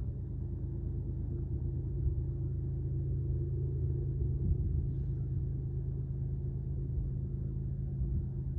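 Low, steady rumble with a constant hum of distant GE diesel locomotives working hard under load, hauling a loaded coal train up a steep grade.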